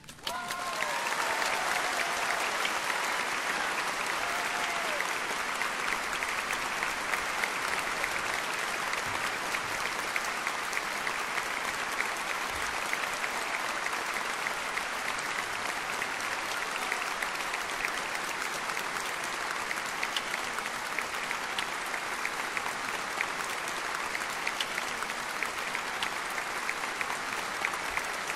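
Large concert-hall audience applauding steadily, starting just after the last note of the string ensemble dies away.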